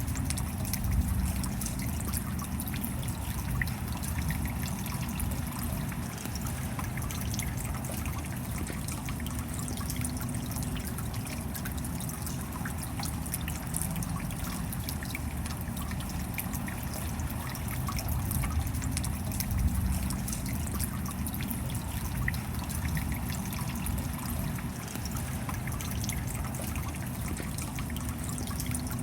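Steady rain with water trickling and many small drops striking, an even, unbroken wash of sound.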